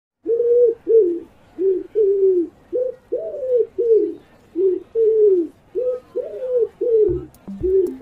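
Pigeon cooing over and over, a run of short arched coos at about two a second. Low thudding pulses join in about seven seconds in.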